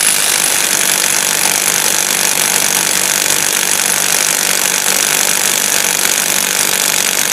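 HPT MA20-IW155N cordless impact wrench hammering continuously at full power, slowly breaking loose a nut torqued to about 750 N·m.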